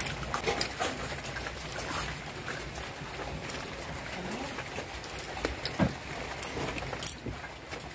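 Crispy fried chicken being bitten and chewed: scattered small crunches and clicks over a steady background hiss.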